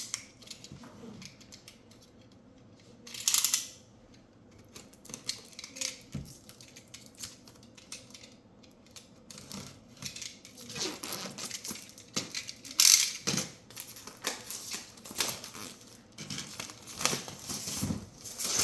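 A product box and its packaging being opened and handled: irregular rustles, scrapes and clicks. There is a louder burst about three seconds in and the loudest one a little past the middle.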